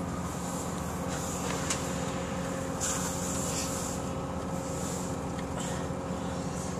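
Passenger train running, heard from inside the carriage: a steady rumble with a constant low drone, broken by a sharp click and a few short hisses.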